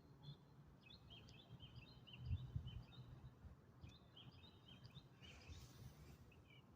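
Faint, rapid high-pitched chirps in irregular runs from a small animal, over a low steady hum.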